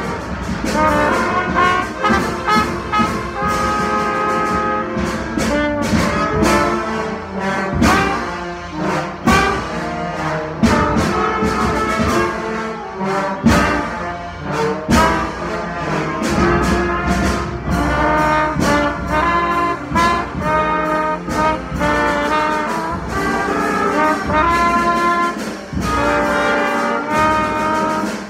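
Trumpets playing a piece of music together, a quick run of changing notes with held notes in between and crisp attacks.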